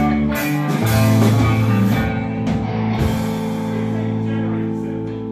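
Live blues-rock band playing an instrumental passage on electric guitars and drum kit. Drum hits come regularly for about the first two seconds, then mostly held chords and notes ring on, fading slightly near the end.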